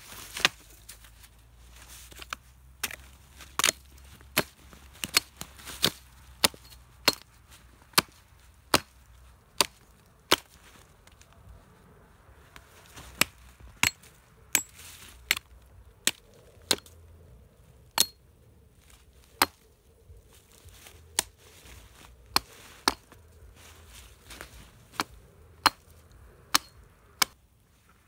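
Repeated chopping blows of a hand tool, sharp strikes about one every three-quarters of a second in steady runs, with two short pauses.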